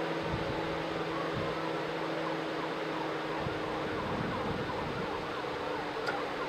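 Distant emergency-vehicle siren, faint, sweeping up and down repeatedly over a steady background hum.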